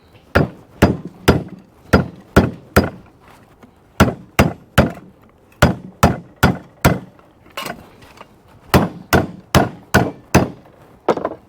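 Hammer blows on sheet steel, struck in runs of about two to three a second with short pauses between, while a rust-repair patch panel is being shaped.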